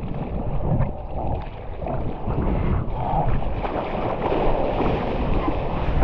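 Ocean surf and water sloshing close to the microphone, with wind buffeting it: a dense, rushing noise with a heavy low rumble that grows louder about a second in.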